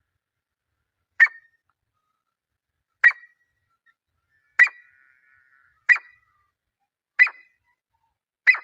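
Grey francolin calling: six short, sharp, high notes, one about every second and a half.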